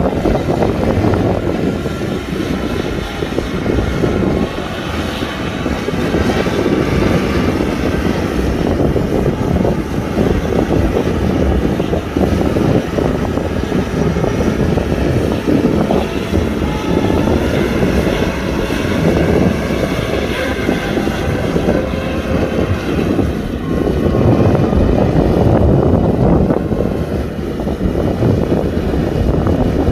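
Kubota tractor's diesel engine running steadily while plowing.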